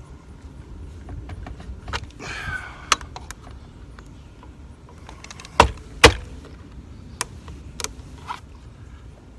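Sharp clicks and knocks of a Minn Kota MKA-21 quick-release trolling-motor bracket being worked to free its stuck mounting puck. There is a short scrape early on and two loud knocks in quick succession about halfway through.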